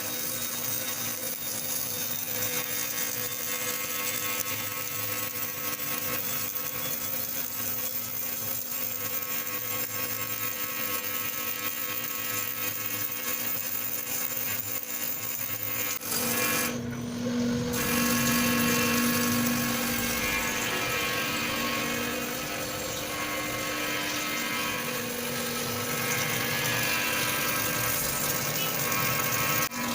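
CNC wire-cut EDM machine running steadily while cutting a steel ball: a constant machine hiss with several steady whining tones. About halfway through, the sound shifts and gets louder and heavier in the low end, with a stronger low hum.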